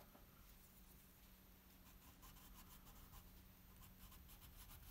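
Faint scratching of a wax crayon colouring on paper in quick short strokes, starting about two seconds in, over near silence.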